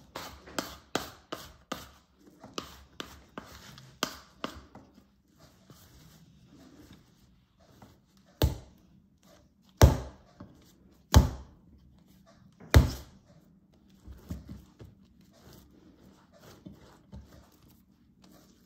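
Bread dough being kneaded by hand on a counter: a run of quick soft slaps and pats, then four loud thuds a little over a second apart as the dough hits the counter, then softer pats again.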